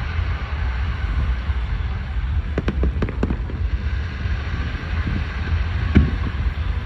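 Aerial fireworks going off: a continuous low rumble of bursts with a few sharper bangs, about two and a half, three and six seconds in.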